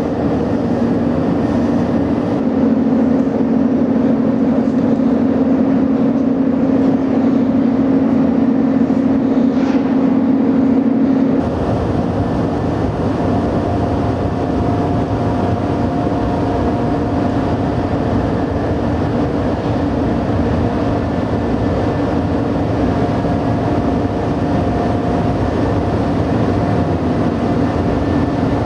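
Steady drone of a cruise ship's machinery on the upper decks, with a low hum. About a third of the way in it switches suddenly to a different steady drone with a higher hum.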